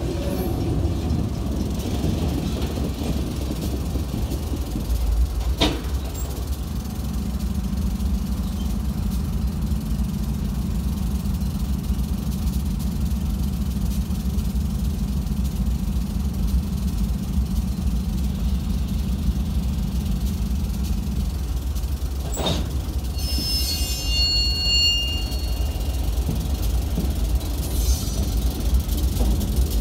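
Freight cars rolling slowly past, a steady low rumble with two sharp clanks and a brief high wheel squeal about 24 seconds in. The diesel locomotive comes up near the end.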